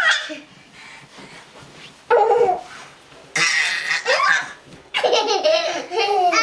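Young children laughing and squealing with glee in several high-pitched bursts, about two, three and a half and five seconds in.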